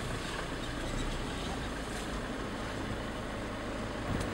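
Vehicle engine running and tyres rolling over a rough bush track, heard from inside the cab as a steady rumble and rush, with a short knock just before the end.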